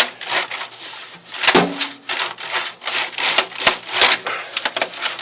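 Damp paintbrush scrubbing back and forth over a keyboard's keys, bristles rasping in quick repeated strokes with sharp clicks among them. The scrubbing works oven-cleaner-dissolved finger grease out from between the keys.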